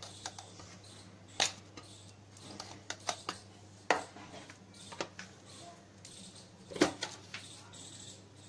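A steel spoon clinking and scraping against a steel mixing bowl and spice containers while salt is spooned into flour: scattered light clinks, with three sharper ones about a second and a half, four and seven seconds in.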